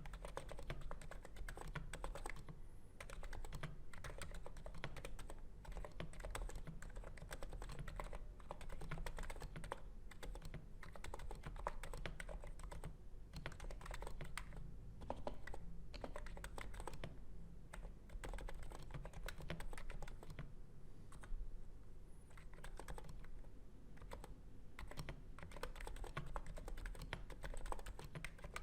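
Continuous typing on a NiZ Plum 87 keyboard with 35g electro-capacitive switches and an integrated plate: a dense, irregular stream of keystrokes.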